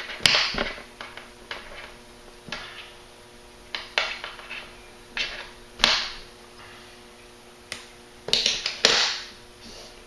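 Hand-handling sounds of thin shock cord being worked through a nylon shotgun sling: irregular short rustles and sharp clicks, about a dozen, loudest near the start, around six seconds in and near the end.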